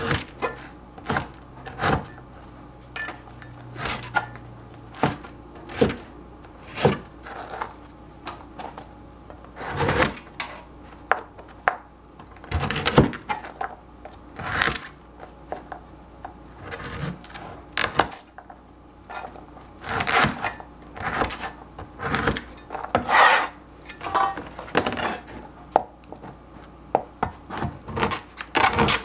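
A cleaver cutting through crusty bread on a plastic cutting board: crunching, rasping strokes through the crust and irregular knocks of the blade on the board, about one a second.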